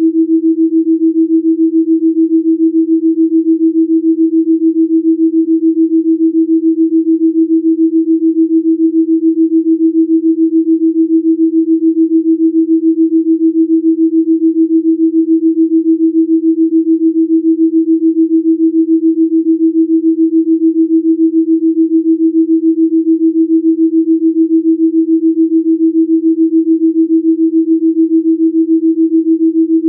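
A single steady pure sine tone, about 300 Hz, with a slight regular pulsing in its loudness: a delta binaural-beat Rife frequency tone.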